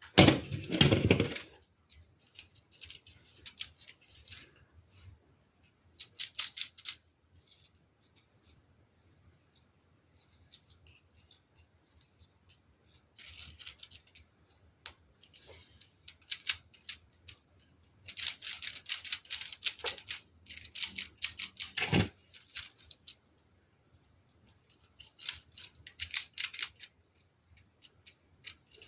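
Plastic LEGO Technic pieces clicking and rattling as they are handled and pressed together, in irregular bursts with short pauses, and a single duller knock about 22 seconds in.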